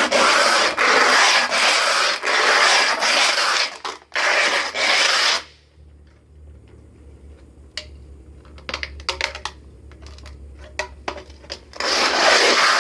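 Metal can rubbed top-down against a block in quick back-and-forth strokes, a loud gritty scraping as the rim is ground down to take the lid off. The scraping stops about five seconds in, leaving a low hum and a few light taps and clicks, and starts again near the end.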